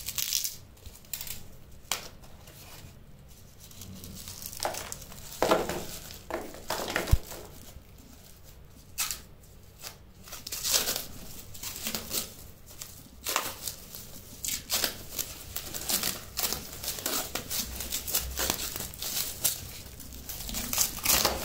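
Plastic wrap crinkling and tearing as it is slit with a knife and peeled off a wrapped stack of bars, in irregular crackles and rips.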